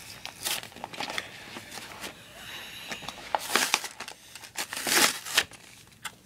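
A plastic blister pack and its card backing crinkling and tearing as they are pulled apart by hand, in irregular bursts, loudest about three and a half and five seconds in.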